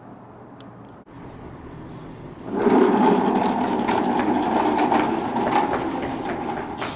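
Hard plastic wheels of a ride-on toy car rolling over a hard floor: a loud, steady rumble that starts about two and a half seconds in, with scattered clicks and knocks from the toy's body.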